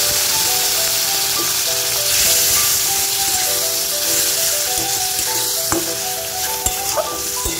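Masala sizzling hard in a hot kadai just after a splash of water has gone in, easing somewhat toward the end, with a couple of scrapes of the metal spatula against the pan. Background music with a simple melody plays throughout.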